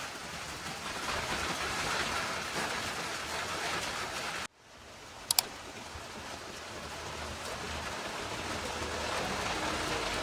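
Steady rain falling, an even hiss. It cuts out abruptly about four and a half seconds in, then fades back up, with two sharp clicks just after.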